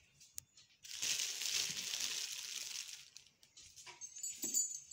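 Clear plastic wrapping crinkling for about two seconds as food is pulled out from under it.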